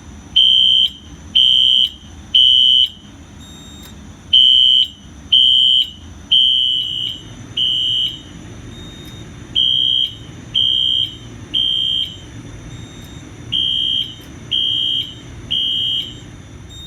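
Wheelock ZNS-MCW-FR horn strobe's horn sounding a high-pitched code pattern: short blasts in groups of three with a pause between groups, one group running to four blasts. The horn is glitching, which the owner puts down to the sync module's horn input being fed march time instead of continuous.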